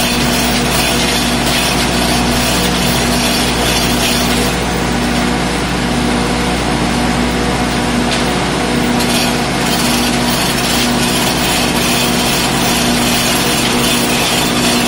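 Generator set running steadily: a loud, even engine drone with a constant hum.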